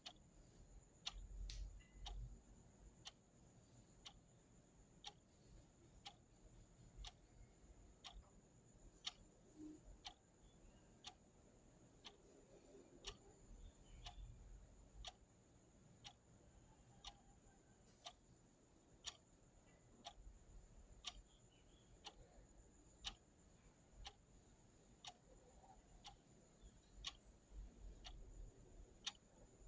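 Clock ticking, about once a second, faint and even. A thin steady high whine runs underneath, and five brief high chirps stand out above the ticks at irregular moments.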